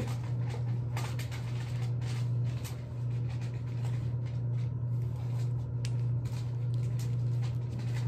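Scattered light scratching and rustling clicks from an Indian ringneck parrot moving about on fabric couch cushions close to the phone, over a steady low hum.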